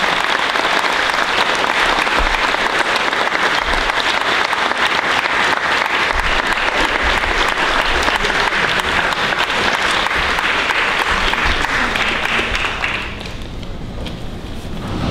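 Audience applauding steadily, the clapping dying away about two seconds before the end.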